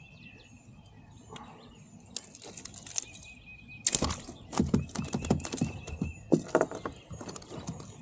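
A hooked white bass thrashing and splashing at the surface as it is reeled in and landed, with reel and handling knocks. The splashes start about two seconds in and come irregularly.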